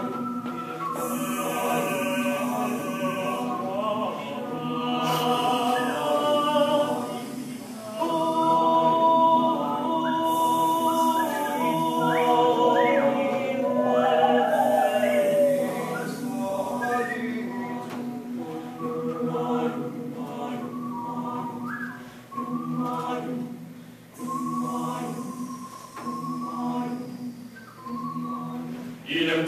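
Male choir singing a cappella: held low chords under moving upper voices, turning to short, separated chords with brief breaks between them in the last few seconds.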